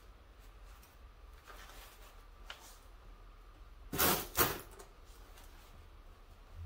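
Faint scraping and handling sounds as body filler is worked with a plastic spreader. About four seconds in come two short, louder scraping rustles, close together.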